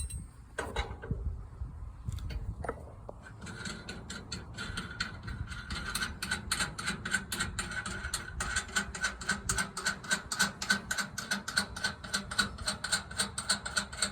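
Ratchet wrench clicking in a fast, steady rhythm as it turns an adjusting rod on a sawmill, starting about three seconds in after a few knocks.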